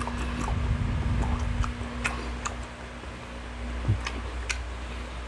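A person chewing a mouthful of bacon close to the microphone: irregular sharp clicks and crackles, with a low mouthy rumble in the first couple of seconds, over a steady low hum.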